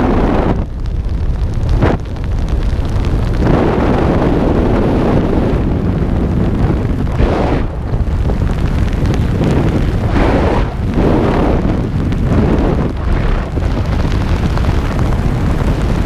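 Wind rushing and buffeting over the microphone of a camera riding down on a parachute jump: a loud, gusting rumble that swells and eases unevenly.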